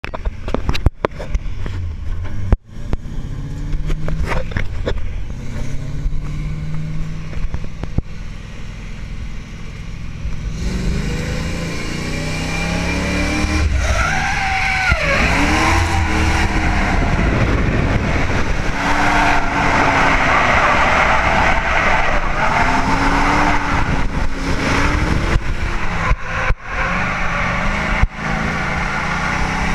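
Drift car engine heard from inside the cabin, moderate at first, then revving hard from about ten seconds in, its pitch swooping up and down with the throttle and gear changes. Tyres squeal through the second half as the car slides.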